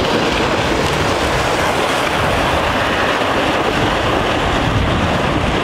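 Plastic ice-fishing sled dragged over bare lake ice, a loud, steady scraping rumble from the hull sliding on the ice.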